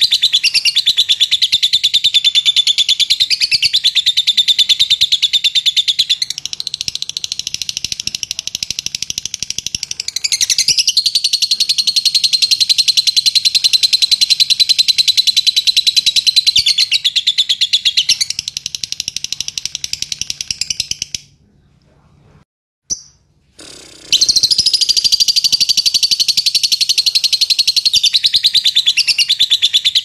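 Fischer's lovebird giving its long 'ngekek' song: a loud, high-pitched, very rapid chattering trill that runs on with hardly a break. It softens twice, stops about 21 seconds in for roughly three seconds with only one short chirp, then starts again.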